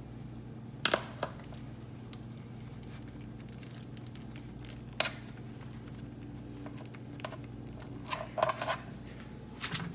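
Scattered soft taps, clicks and handling sounds from hands rolling filled tortillas and setting them in a baking pan, with a small cluster of knocks near the end, over a steady low hum.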